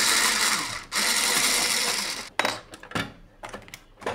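Cordless electric screwdriver running in two bursts of about a second each, backing out the screws of a plastic panel. Then a few light clicks and knocks as the panel and screws are handled.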